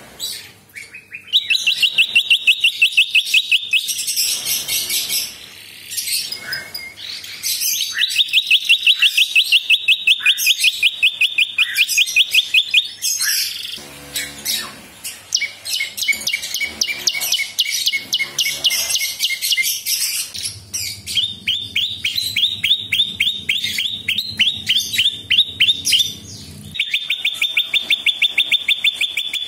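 Caged prenjak singing: long runs of fast, evenly repeated sharp high notes, several a second, in bursts of a few seconds with short breaks between them.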